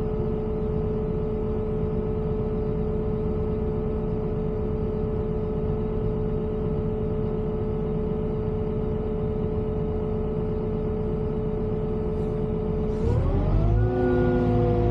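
Volvo EWR150E wheeled excavator's diesel engine running steadily with a constant whine, then revving up near the end and holding at higher revs.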